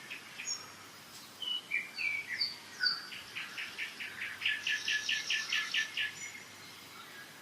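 Songbirds singing in a spring forest: scattered short, high whistled notes, then a fast trill of repeated notes, about five a second, lasting some three seconds. A faint steady rush of a mountain river lies underneath.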